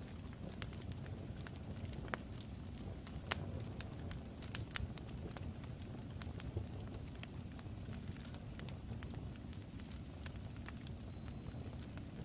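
Crackling fire: a steady low rumble with irregular sharp pops and crackles, and a faint high whistle through the second half.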